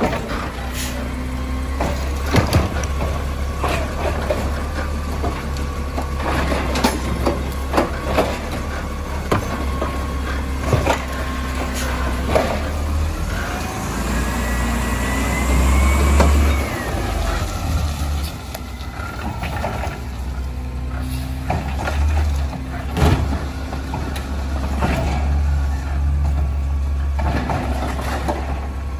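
Natural-gas automated side-loader garbage truck running, its engine a steady low drone, with repeated knocks and clanks as it works the cans. Its hydraulics whine up and down midway, and near the end the arm lifts a recycling cart and tips it into the hopper.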